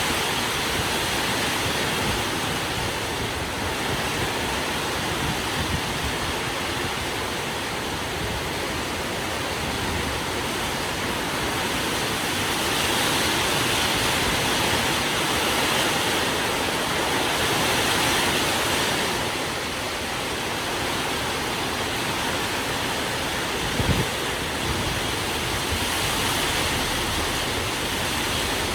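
Heavy rain pouring steadily, a dense hiss that swells and eases a little. A single sharp tap is heard well into the downpour.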